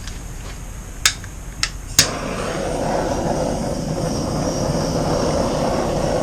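A handheld heat tool switched on with three sharp clicks, then a steady rushing noise as it blows heat over the wet acrylic paint.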